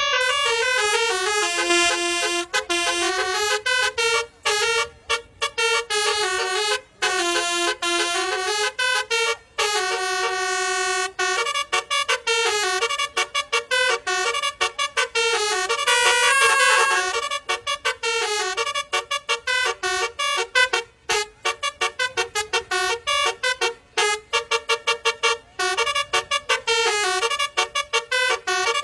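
Telolet basuri bus horn playing a melody through its electronic module: a run of changing horn notes, some sliding in pitch, with a few longer held notes in the middle. Toward the end the tune breaks into quick, choppy short toots.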